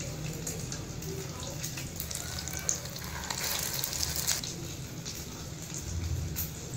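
Egg-coated chicken shami kabab patties shallow-frying in oil in a pan on a low flame: a steady sizzle with fine crackles, louder for about a second near the middle.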